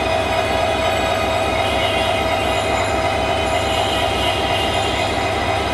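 Diesel locomotive running at idle, a steady hum over an even low rhythmic rumble, while it stands on a turntable being pushed round by hand.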